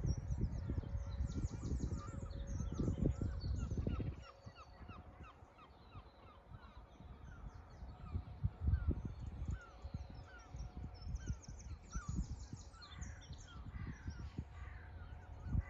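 Seabirds calling over and over: a steady run of short calls at about two a second, with higher, busier chatter above. A low rumble on the microphone is loudest for the first four seconds and comes and goes after that.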